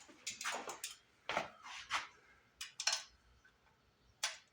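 Metal hand tools clinking and clattering against metal in a string of short, irregular clanks, as work starts on unbolting an engine's muffler.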